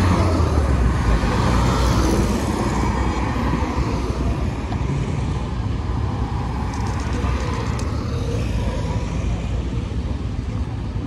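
Engine of a classic Mini driving past close by, loudest in the first couple of seconds and then fading, over a steady rumble of old cars moving along the road.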